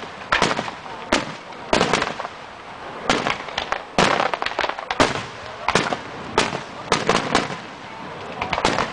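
Aerial firework shells bursting overhead: a rapid, irregular series of sharp bangs, several a second, each trailing off in an echo, over continuous crackling.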